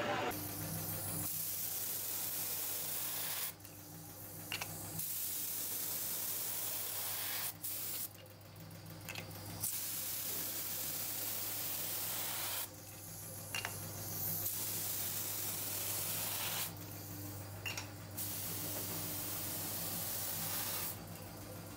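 Paint spray gun hissing in five bursts of two to three seconds each, with short pauses between, as oil filter canisters are spray-painted. A steady low hum runs underneath.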